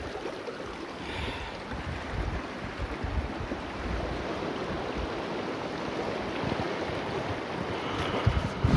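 Shallow river water rushing over stones, a steady hiss with wind buffeting the phone's microphone in low rumbles. A few sharp knocks near the end.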